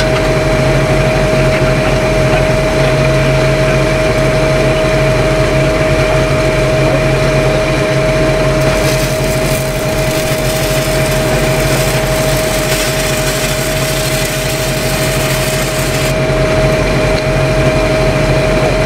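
Engine-driven welding machine running steadily with a constant whine, under the hiss and crackle of a welding arc on steel pipe that grows stronger in the middle of the stretch.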